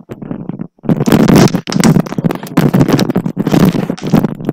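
Loud crackling and rubbing of a headset microphone being handled and adjusted, with many sharp clicks, starting about a second in.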